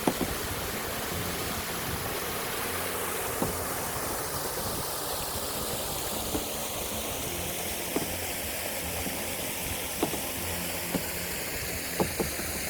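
Small waterfall: a modest flow of water spilling into the reservoir, a steady rushing splash, with a few faint sharp ticks through it.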